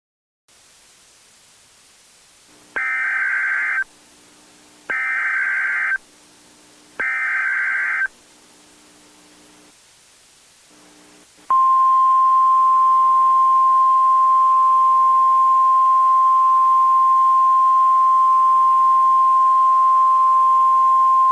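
Emergency Alert System tones as sent over NOAA Weather Radio. Three loud one-second bursts of SAME header data tones come with short pauses between them. After a brief gap, the steady 1050 Hz warning alarm tone holds for about ten seconds and stops abruptly; this tone marks a warning-level alert.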